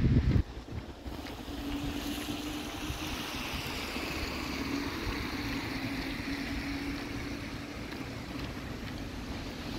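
Steady wet-weather hiss of rain and car tyres on a wet road, with wind buffeting the microphone for the first half second. A faint steady hum runs underneath from about a second and a half in.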